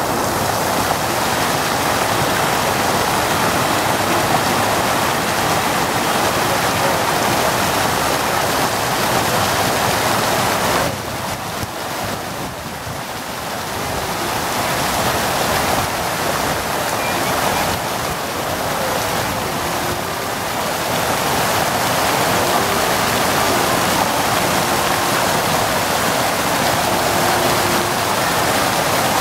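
A steady rushing noise, dipping quieter for a few seconds near the middle.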